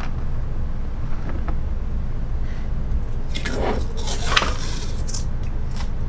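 Scraping and rustling of parts being handled, loudest from about three to four and a half seconds in, with a few faint ticks before it, over a steady low hum.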